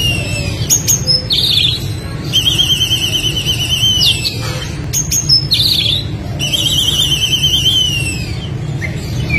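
Oriental magpie-robin (kacer) singing loudly: sharp short notes and two long warbling trills, each ending in a downward slide, over a steady low background rumble.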